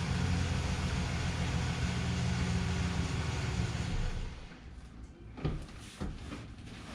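A vehicle engine running with a steady low hum, which drops away about four seconds in, followed by a couple of faint knocks.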